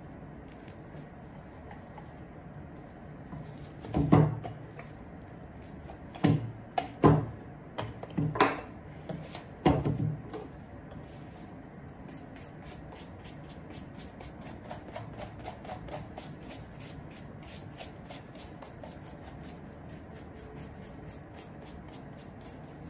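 A few loud knocks and handling bumps in the first half, then a brush scrubbing a suede shoe in quick, even strokes, several a second, through the second half.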